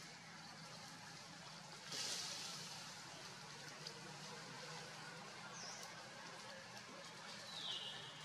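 Faint forest ambience: a steady hiss with a few short high-pitched calls, the first about two seconds in and a falling one near the end.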